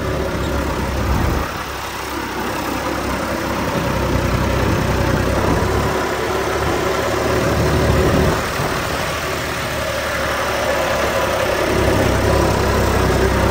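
John Deere 5405 tractor's turbocharged diesel engine, fitted with a power upgrade, running steadily in D-range second gear as the tractor drives across a field. The engine note dips slightly a little over a second in and again around eight seconds, then builds back up.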